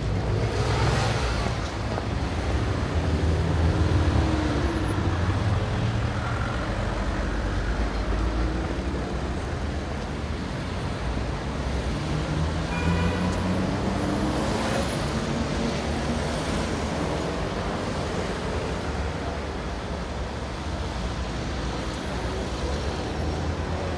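City street traffic: a steady low rumble of engines, with vehicles passing close by about a second in and again around fifteen seconds.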